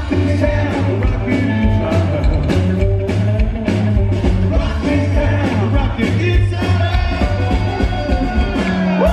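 Rockabilly trio playing live at full volume: electric guitar, upright bass and drums with a steady driving beat, heard from within the audience.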